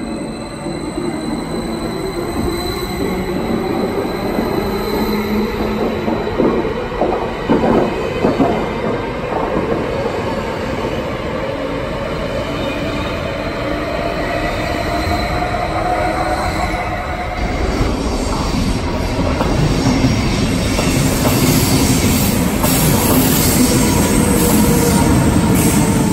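SBB Stadler KISS (RABe 511) double-deck electric train pulling into the platform on a curve, with wheels squealing and thin whining tones that glide up and down over the rumble of the wheels. The rumble grows louder in the second half.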